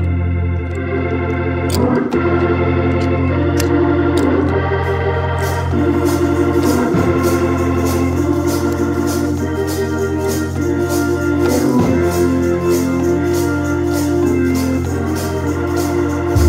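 Organ playing sustained chords over a held bass note, the chords changing every second or two. About six seconds in, a steady beat of sharp taps joins.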